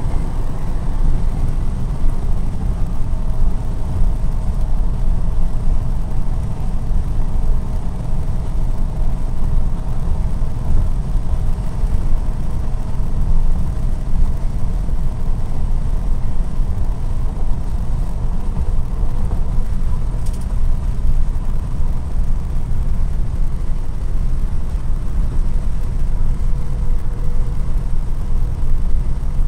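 A 1968 Ford Torino driving at road speed, heard from inside the cabin: a steady low rumble of engine and road noise with a faint steady hum above it.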